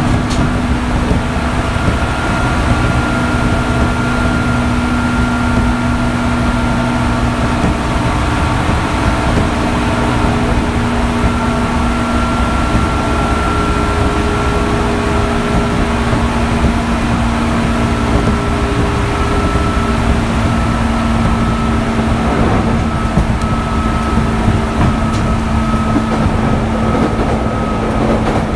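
Onboard running sound of a JR 205-series electric train motor car, MoHa 205-270, whose DC traction motors have outer cooling fans. The motor and gear whine holds steady tones that shift slightly in pitch, over a continuous rumble of wheels on rail.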